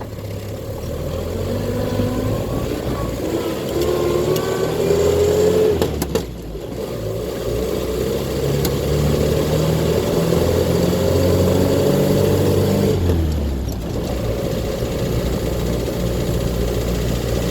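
Land Rover Series II's 2.25-litre four-cylinder petrol engine and newly fitted gearbox pulling in gear, the revs climbing, dipping briefly about six seconds in, climbing again, then easing to a lower steady run near the end.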